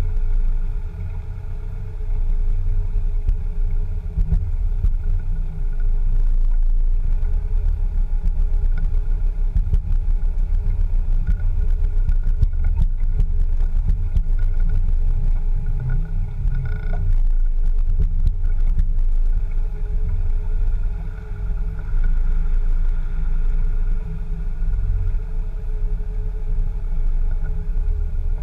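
Land Rover Discovery 2 driving over a rough dirt track, heard from a camera mounted low on its side: a steady heavy rumble of engine and tyres, with scattered knocks and rattles in the middle.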